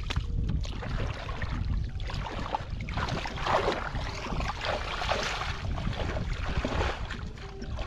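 Shallow muddy water splashing and sloshing as hands grope through it and legs wade in it, loudest about three to four seconds in, over a steady low wind rumble on the microphone.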